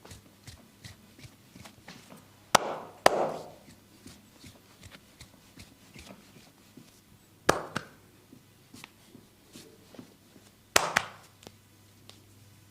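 Massage strokes by hand: three pairs of sharp slaps, with lighter tapping and clicking of the hands between them.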